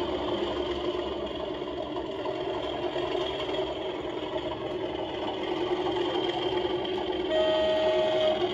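OO gauge model BR Class 37 diesel locomotive with a DCC sound decoder: the diesel engine sound running steadily as it draws a freight train, with one horn blast of about a second near the end.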